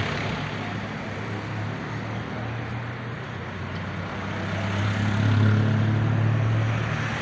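City street traffic, with a motor vehicle's low engine hum growing louder about five seconds in and easing off near the end.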